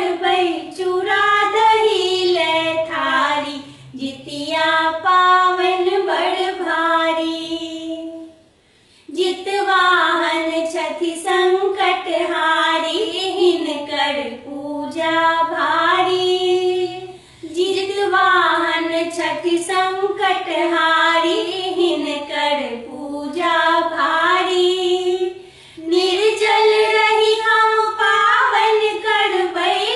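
A Maithili Jitiya festival folk song (Jitiya geet) sung by high female or young voices without instruments. The lines break with short pauses about every eight seconds.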